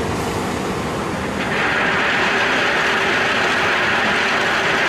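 Tipper truck's diesel engine running as the tipping body rises. About a second and a half in, a load of crushed stone starts pouring out of the back, adding a louder rushing noise.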